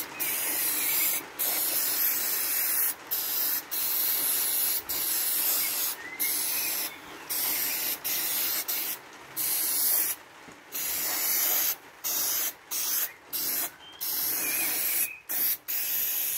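Aerosol contact cleaner hissing from the can in a string of short bursts with brief pauses between them, sprayed onto a freshly water-rinsed motherboard to drive the water off the chips.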